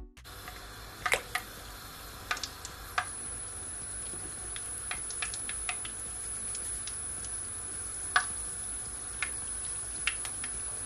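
Festival dumplings deep-frying in a thick pot of oil on medium heat: a steady sizzle with scattered sharp pops and crackles.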